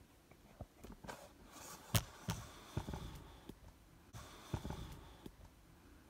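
Handling noise from a handheld camera being adjusted: scattered knocks and rubbing, the loudest knock about two seconds in.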